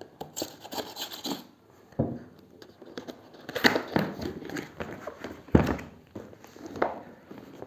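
Keyboard's cardboard box being opened by hand: irregular rustling, scraping and tearing of the packaging, with a couple of sharp knocks.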